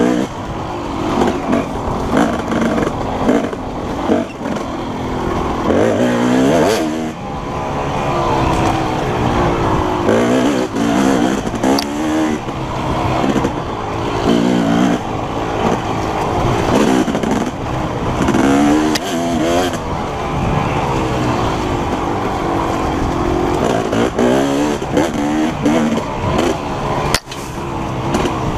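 KTM 250SX two-stroke dirt bike engine revving hard, its pitch climbing and dropping again every second or two with throttle and gear changes as the bike is ridden fast along a trail.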